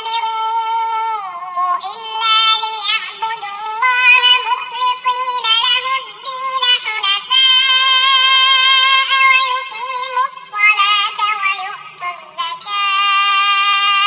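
High-pitched, synthetic-sounding voice chanting Quranic recitation in long held, ornamented notes, with short breaks between phrases.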